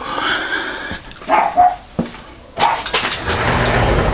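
A dog barking, the loudest bark about a second and a half in, followed by steady rustling and scraping noise.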